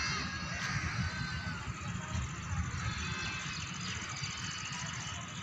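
Wind rumbling on the microphone, with a few short, high calls from animals in the distance.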